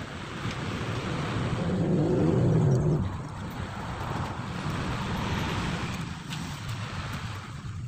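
Background road traffic, with one vehicle's engine passing close by and loudest about two seconds in, then fading.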